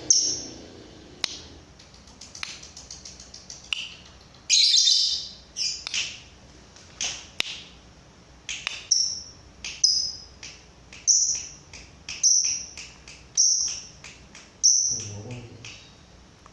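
Lovebird singing in the 'odong-odong' style: short, high chirps repeated in a steady series about once a second, with scattered clicks and one longer, harsher call partway through.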